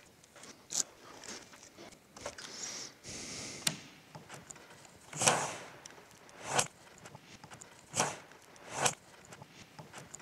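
Soft handling sounds as masking tape is peeled off the battery cover and the manual disconnect lever is pulled out of the pressurized pack. In the second half there are several short rushes of noise, about a second or so apart.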